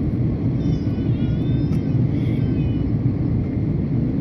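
Steady low rumble of an Airbus A330-200 airliner in flight, heard from inside the passenger cabin: engine and airflow noise.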